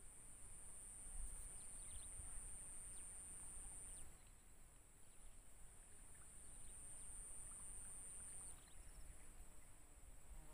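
Near silence in open grassland: a faint, steady high-pitched insect buzz that drops away about four seconds in and swells again later, over a light low rumble of wind on the microphone.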